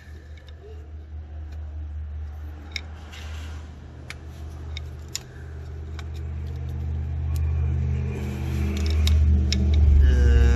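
A vehicle engine running nearby, getting steadily louder toward the end. Over it, scattered sharp clicks and taps of a screwdriver working a wiring harness connector onto an alternator.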